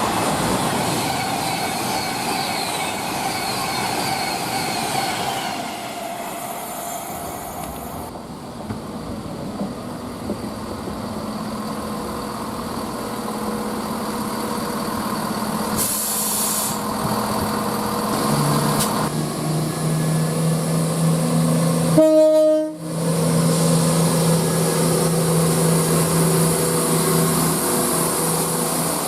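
A train passing on the West Coast Main Line, loudest in the first few seconds and easing off after about eight seconds. A steady low hum builds from about two-thirds of the way in, broken by a brief sudden dropout near the end.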